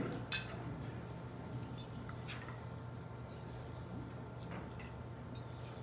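Quiet hall room tone: a steady low hum with a few faint, scattered clicks.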